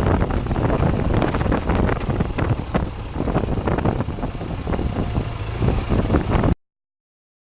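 BMW R 1200 GS boxer-twin motorcycle riding off-road, heard with wind buffeting the microphone and many small knocks and rattles. The sound cuts off abruptly about six and a half seconds in.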